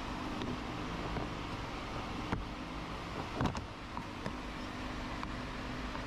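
A few small sharp clicks and taps of a pry tool working a plastic interior door trim piece loose, the loudest about halfway through, over a steady low hum.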